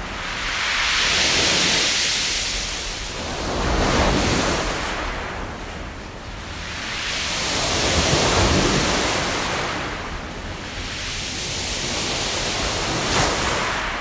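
Sea waves breaking and washing over a beach of smooth, rounded pebbles (mongdol), with the hiss and rattle of the stones as the water surges in and drains back. The surf swells and ebbs several times over a low rumble.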